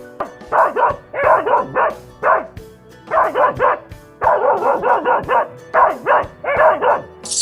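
A dog barking in short runs of quick barks, about seven runs in all, over background music.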